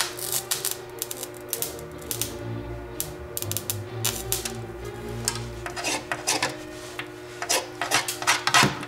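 Irregular crackling snaps of electric sparks as wires fed by a microwave oven transformer touch and arc, coming faster and louder near the end.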